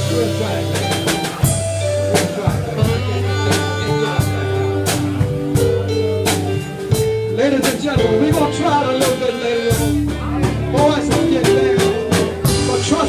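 Live band playing a blues number: drum kit keeping a steady beat under hollow-body electric guitar and keyboard.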